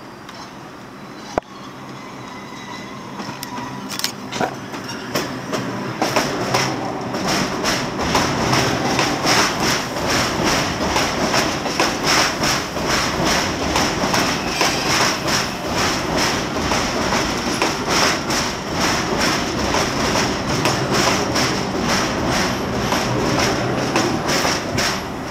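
R142 subway train pulling into the station and running past close by. It grows louder over the first several seconds, then settles into rapid clacking of wheels over rail joints with a steady high squeal over it.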